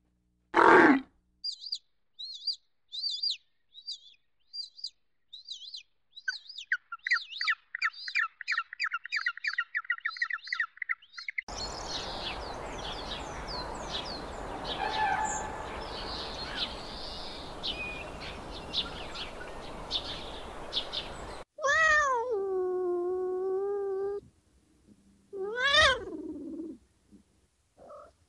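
A camel's short grunt right at the start, then a bird's high chirps that turn into fast repeated trills. After a cut come about ten seconds of steady hiss with scattered bird chirps. Near the end a domestic cat meows twice: a long, drawn-out meow, then a shorter one that rises and falls.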